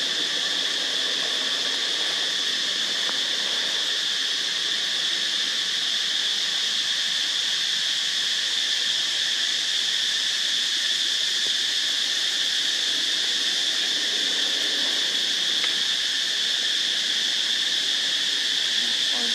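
Steady chorus of forest insects: an unbroken, even high-pitched buzz that holds at one level without pause.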